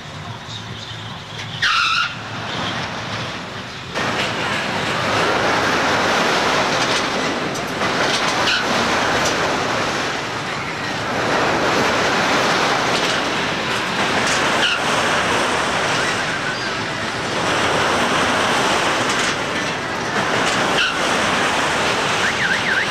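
Swinging pirate-ship funfair ride: a loud rushing noise that sets in about four seconds in and swells and fades in slow waves several seconds apart, with a short high squeal just before it starts.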